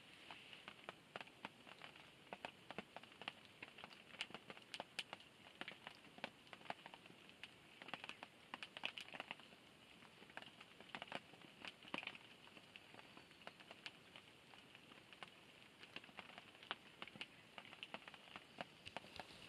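Faint light rain pattering, with many irregular drips and small crackles from a small open fire.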